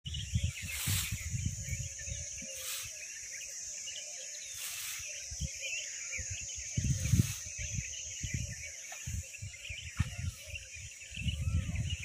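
Many small birds chirping in a dawn chorus over a steady high-pitched insect drone, with irregular low rumbling and a few brief swishes.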